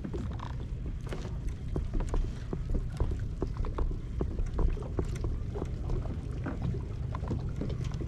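Small waves lapping and slapping against a kayak hull in irregular little splashes and knocks, over a steady low rumble of wind on the microphone.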